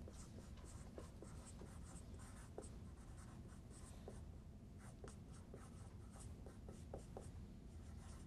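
Faint squeaks and scratches of a dry-erase marker on a whiteboard as a line of handwriting is written, many short strokes in quick succession.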